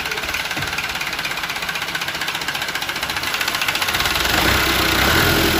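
Landini DT85 tractor's diesel engine idling with a rapid, even pulse. Music comes in near the end.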